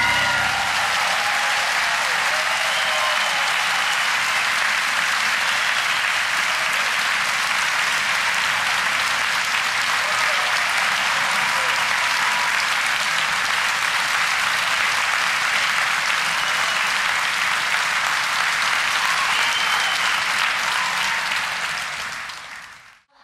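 Large theatre audience applauding steadily after a piano performance, fading out near the end.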